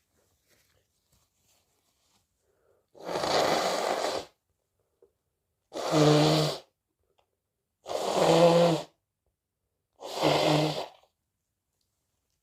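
A person blowing their nose forcefully four times, each blow lasting about a second. The last three blows carry a low buzzing tone through the nose.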